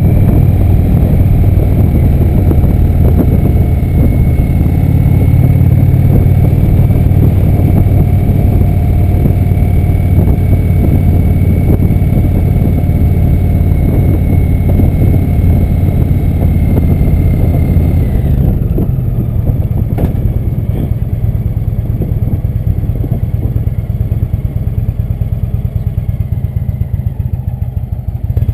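Indian motorcycle's V-twin engine running as the bike rides along. About two-thirds of the way through, the engine note drops and gets quieter as the throttle comes off and the bike slows, running low and soft near the end.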